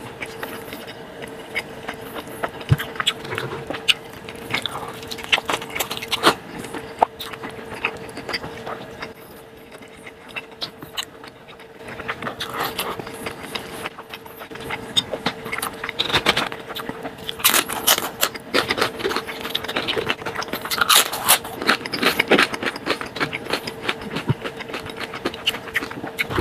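Close-miked eating of crispy fried tacos dipped in broth: crunching, chewing and wet mouth sounds in quick irregular clicks, busiest in the second half. A faint steady hum runs underneath.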